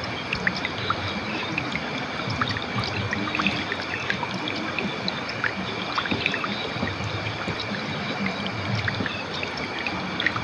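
River water flowing over rocks, a steady rush with many small splashes and drips through it.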